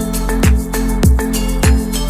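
Background music with a steady kick-drum beat, about two beats a second, under held chords.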